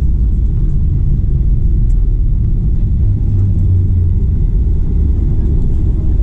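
Steady low rumble inside the cabin of a Boeing 737-800, the airliner's engine and airframe noise.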